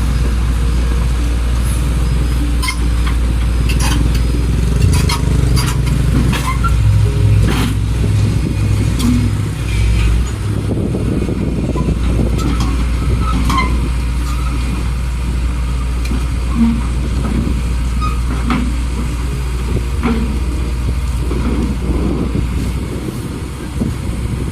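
Pindad excavator's diesel engine running steadily while the machine climbs onto a towing truck, with scattered metallic clanks and knocks throughout.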